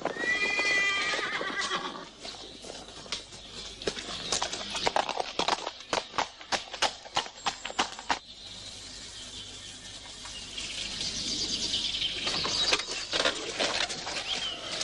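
A horse whinnies, then a quick run of galloping hoofbeats follows for several seconds. Later a rising rushing noise comes in with more hoofbeats.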